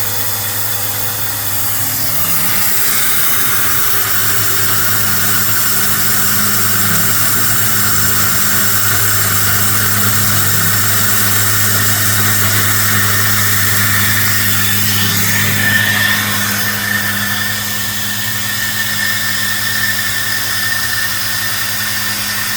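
Milling machine running steadily while cutting compensator ports into a Glock 19 barrel: a constant motor hum with a cutting noise that swells and eases, and a thin high squeal that sets in about 16 seconds in and holds.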